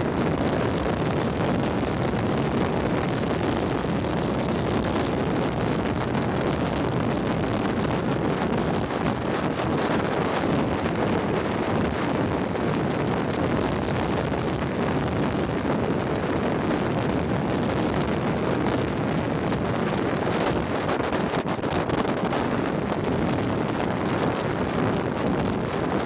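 Steady wind rush over the microphone at speed, mixed with the rolling hiss of wheels on asphalt.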